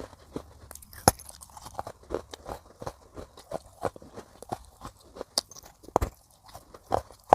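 Close-miked chewing of baked clay pot pieces: a steady run of dry, gritty crunches, with a sharp bite snapping off a piece about a second in and another near six seconds.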